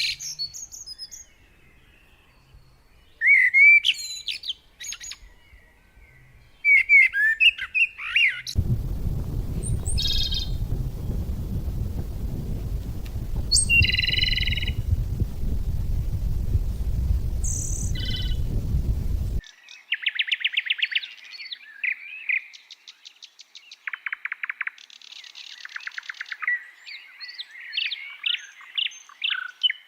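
Songbirds singing: short chirps, whistled rising and falling phrases, and fast buzzy trills. From about eight seconds in until about nineteen seconds, a loud, steady low rumble lies under the birdsong, then stops abruptly.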